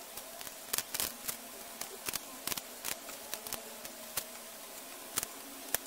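Dry cigar being broken apart by gloved hands, pieces dropping into a stainless steel cup: irregular sharp crackles and clicks over a faint steady hum, played back sped up.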